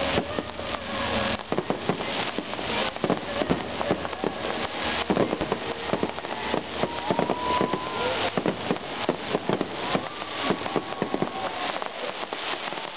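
Fireworks display: a dense, continuous volley of crackling and popping as many shells and crackle stars burst in quick succession.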